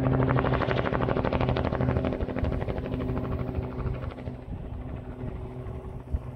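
Helicopter rotor and turbine/engine running with a fast, steady blade beat, fading noticeably about four seconds in.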